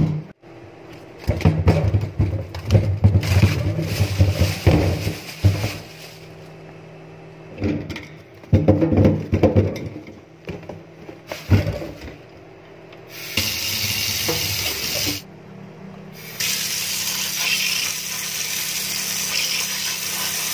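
Irregular knocks and rustling as fruit and vegetables are handled and dropped into a stainless steel sink, then a kitchen tap running in a steady stream, turned off briefly about two-thirds of the way through and on again, rinsing bananas.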